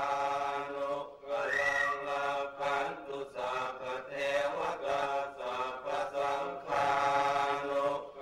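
Thai Buddhist monks chanting together in unison, in long held phrases with short breaks between them.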